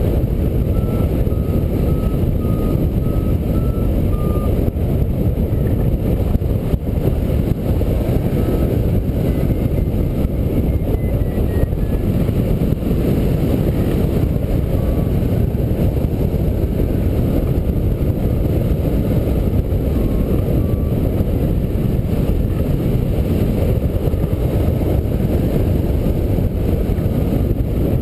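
Steady rush of airflow over the microphone of a hang glider in flight. A hang-gliding variometer gives a run of short beeps in the first few seconds, then a few scattered beeps: its signal that the glider is in rising air.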